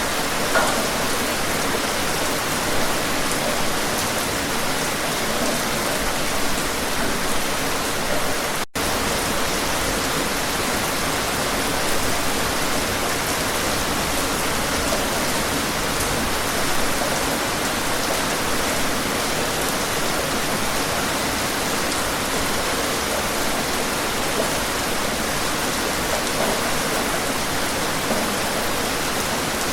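Steady, dense rainfall, a continuous even hiss, with a split-second dropout to near silence about nine seconds in.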